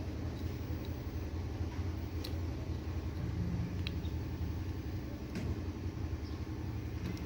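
A motor vehicle engine idling steadily, with a few light metallic clicks from small parts being handled.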